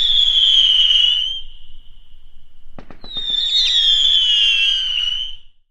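Two whistling fireworks, each a shrill whistle slowly falling in pitch for about two and a half seconds. The second starts about three seconds in with a few sharp cracks.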